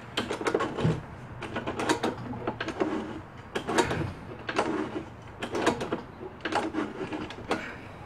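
Metal clicking and rattling of a John Deere JX75 mower engine's choke and throttle linkage being worked by hand, a few clicks about every second. The choke lever moves, but not far enough to fully close the choke butterfly.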